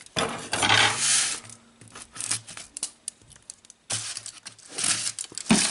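Packing paper and padding being crinkled and torn by hand while a parcel is unwrapped: a stretch of rustling, then a quieter run of small clicks and taps, then rustling again about four seconds in.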